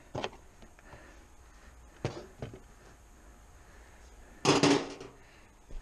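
Scattered clicks and knocks from parts and tools being handled, with a louder clatter about four and a half seconds in.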